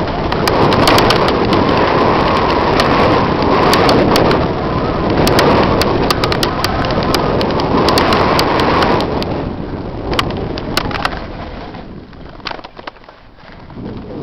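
Mountain bike descending loose dirt singletrack, recorded on a helmet camera: a rush of wind and tyre noise, with frequent sharp clicks and rattles from the bike. After about nine seconds it eases to a quieter rush with only a few clicks.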